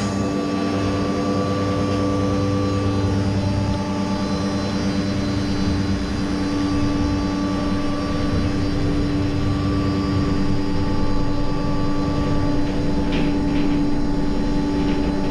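Electric drive of a bunker's searchlight-mirror installation running with a steady, even hum as the hatch over the mirror closes. It starts and stops abruptly, with a few short clicks near the end.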